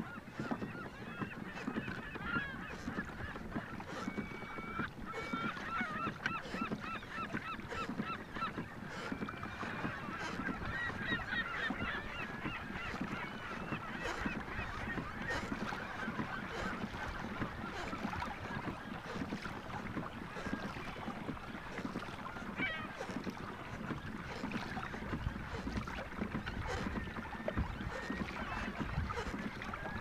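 A large flock of waterbirds on the water calling, a dense chorus of many short overlapping calls that thickens in the middle and thins toward the end.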